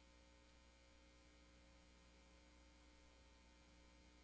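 Near silence: only a faint, steady electrical mains hum.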